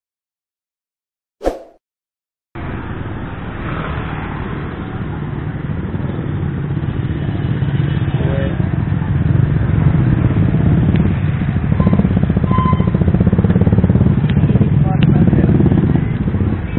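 A short transition sound effect in digital silence, then street noise cuts in: motorcycle engines running and passing, a low rumble that grows louder, with indistinct voices.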